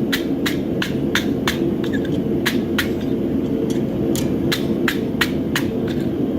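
Forge running with a steady low rushing noise while a horseshoe heats for a weld, overlaid by a regular run of sharp light taps, about three a second, that pause briefly in the middle and stop near the end.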